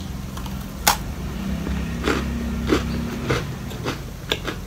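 Crunchy bite and chewing of a macadamia nut tart with a thick, crisp pastry shell: a sharp crunch about a second in, then several more crackly crunches as it is chewed.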